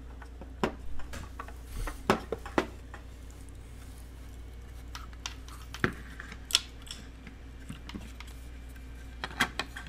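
Scattered clicks and light knocks of hands handling a 3D-printed plastic frame and its wires, over a steady low hum.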